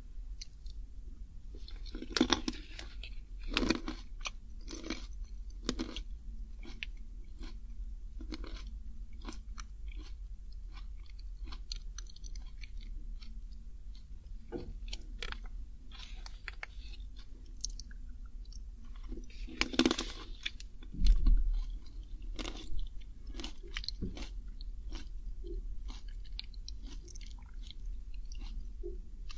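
Close-miked chewing of salt-baked shelled macadamia nuts: irregular crisp crunches as the nuts are bitten and ground. A dull low thump comes about two-thirds of the way through.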